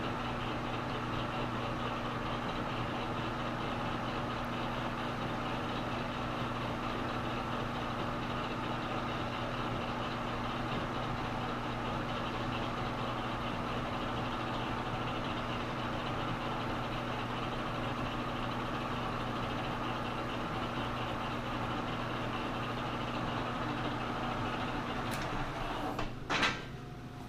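Metal lathe running steadily with a constant motor hum. Near the end a few sharp clicks or knocks come as the lathe is switched off, and the running sound drops away.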